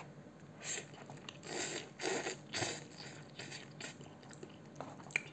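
A person eating instant cup noodles with chopsticks: a run of short slurps and mouth noises, mostly in the first three and a half seconds, with chewing after.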